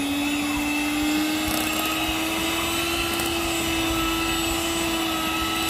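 Electric hand mixer running at a constant speed, its twin beaters whipping thick marshmallow mixture in a bowl. The motor gives a steady whine that rises very slightly in pitch.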